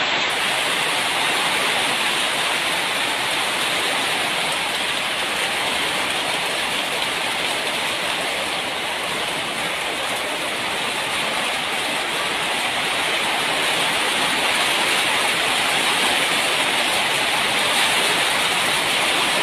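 Steady rain falling, an even hiss that holds without letup.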